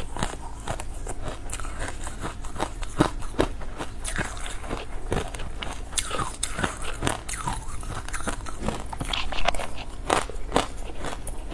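Mouthfuls of powdery matcha ice being bitten and chewed, in rapid, irregular crunches.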